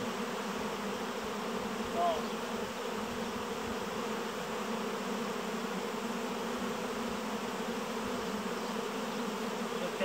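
A honeybee swarm in flight, a dense, steady buzzing hum of many bees around the hive box as the swarm is being hived.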